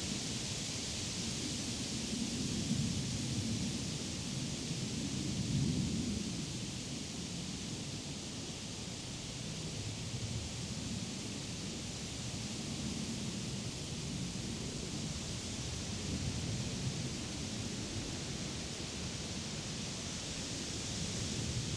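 Wind blowing through the leaves of trees and through grass, a steady rustling hiss with gusts that swell and ease every few seconds, and low rumbling from the wind buffeting the microphone.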